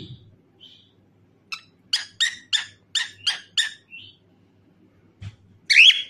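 Cockatiel chirping: a run of seven quick chirps, about three a second, then a short note. A loud rising call comes near the end and is the loudest sound.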